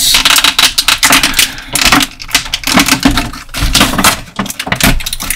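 Stiff plastic packaging being handled and pulled apart to free action-figure accessories, a rapid, uneven run of small clicks and crackles.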